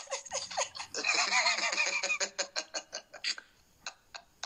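Men laughing: a long peal of laughter that breaks into rapid short pulses, thinning out near the end.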